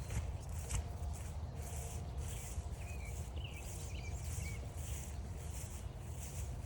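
Footsteps crunching on a trail at an even pace, about two steps a second, with a few short bird chirps midway.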